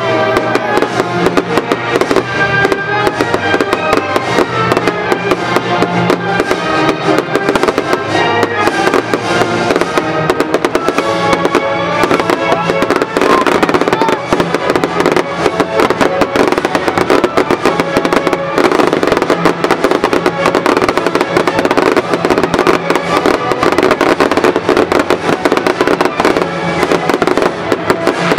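Loud music for the fireworks show, mixed with a dense, continuous crackle and popping of fireworks bursting.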